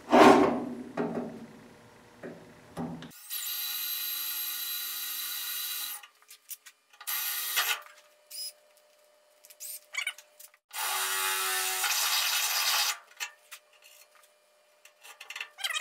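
Cordless drill running in several bursts, boring a small pilot hole and then a larger hole through the car's bonnet for the bonnet stay bracket.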